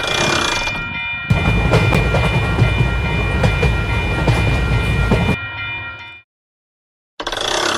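Train passing a railroad crossing: a low rumble with clattering wheels for about four seconds over the crossing warning bell's steady ringing, then everything cuts off suddenly. A short burst of noise comes in near the end.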